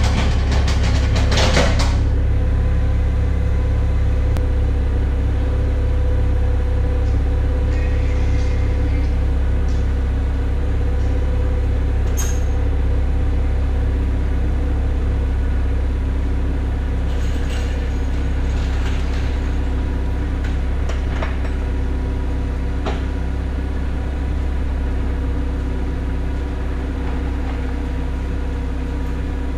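A steady low mechanical drone with a constant hum, unchanging throughout, with a few faint clicks.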